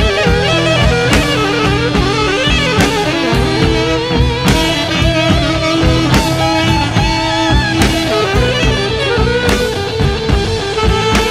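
Progressive rock band recording playing, with electric guitar and drum kit and wavering held melody notes. A cymbal crash lands about every second and three quarters.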